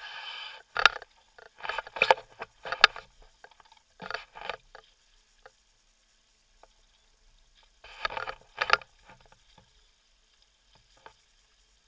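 Water splashing and slapping against the hull of a Hobie Tandem Island sailing kayak under sail, in irregular bursts through the first few seconds and again about eight seconds in, with quieter gaps between.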